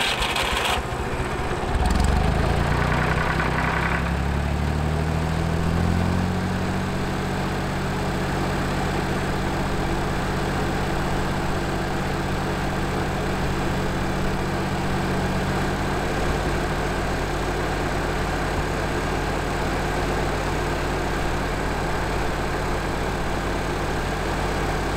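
Ford 3000 tractor's three-cylinder gasoline engine being started: the starter cranks briefly, the engine catches about two seconds in, revs unevenly for a few seconds, then settles into a steady idle.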